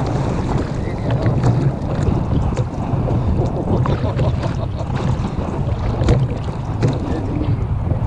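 Firm wind buffeting the microphone as a steady low rumble, with choppy sea lapping at the kayak and scattered small clicks.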